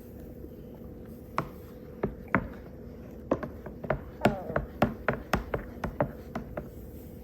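A utensil stirring juice in a container, clinking and knocking against its sides: about fifteen irregular clinks, some briefly ringing, starting about a second and a half in and stopping shortly before the end.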